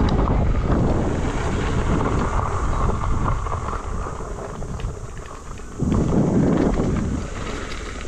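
Wind buffeting the microphone of a rider moving over a gravel forest track, a dense, rough low rumble with scattered small knocks. It swells louder about six seconds in.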